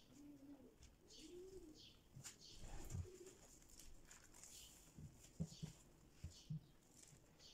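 Faint bird calls: low cooing and short high chirps. A brief rustle comes about three seconds in, and a few soft knocks in the second half.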